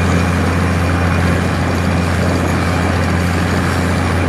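Bruce SGV-300 hydraulic vibratory hammer running steadily, vibrating a steel sheet pile into the ground: a loud, even, low hum with a rattling noise over it.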